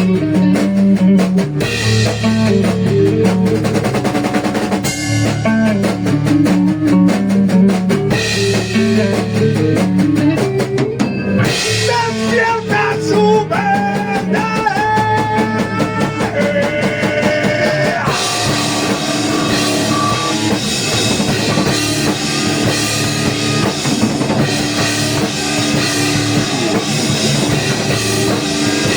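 Rock band playing an instrumental passage: drum kit with bass drum, electric guitars and bass, the texture growing denser and brighter about two-thirds of the way through.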